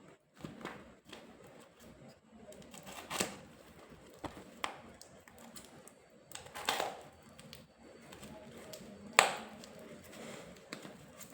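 Packaging being opened by hand: crinkling and rustling with scattered sharp clicks and snaps, the loudest snap about nine seconds in.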